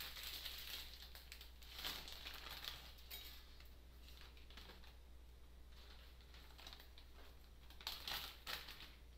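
Faint crinkling and light clicks as a bundle of dry spaghetti is handled and pushed down into a pot of boiling water, over a low hiss from the boiling. There are brief crackles about two and three seconds in, and a cluster near the end as the strands are pressed down.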